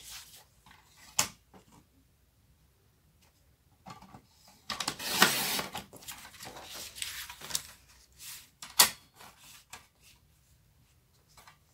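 Sliding paper trimmer's blade carriage drawn along its rail through a sheet of cardstock, one scraping pass about five seconds in. Sharp clicks before and after, with paper being shifted against the rail.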